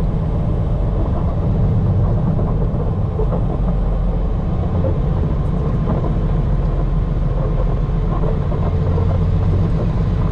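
Semi truck's diesel engine running steadily under light load as the tractor pulls a flatbed trailer slowly through a yard, a deep even rumble heard inside the cab.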